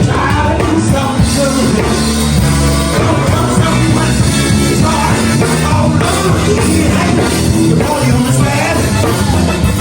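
A band playing loud, steady music with a singing voice over it.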